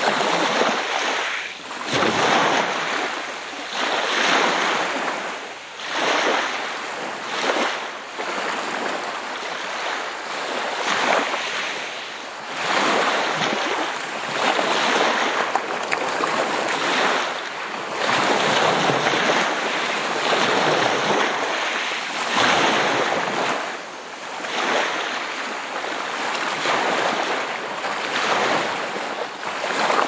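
Gentle sea waves breaking and washing on a beach, the surf swelling and fading in repeated surges every couple of seconds.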